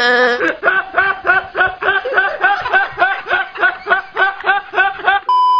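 A man's high-pitched laughter: a long, even string of short "hee" syllables, about three a second. It is cut off near the end by a steady electronic beep tone.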